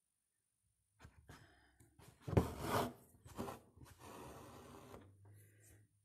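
Hand embroidery: a needle and embroidery thread worked through taut cloth, giving a few short rustles, a louder brush a little over two seconds in, and a steady rasp of thread being drawn through for about a second.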